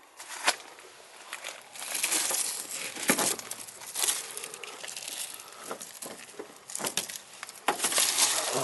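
Dry leaves and brittle, rotted debris rustling and crunching as gloved hands dig through them, in irregular bursts with sharp little cracks, busiest near the end.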